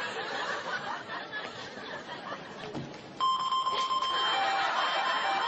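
Walk-through metal detector gate sounding its alarm: a steady electronic tone switches on suddenly about three seconds in and holds, with a second, lower tone cutting in and out over it, the sign that the person passing through has set off the detector.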